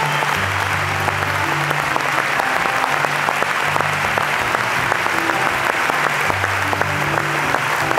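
Concert audience applauding steadily, with acoustic guitars playing low held notes softly underneath.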